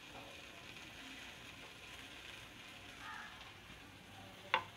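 Faint steady sizzling of bitter gourd pieces frying in sesame oil in a kadai, with one sharp click near the end.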